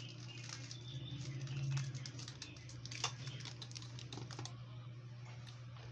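A child eating Coco Crunch cereal with milk: light, irregular clicks and crunches from the spoon and cereal, over a steady low hum.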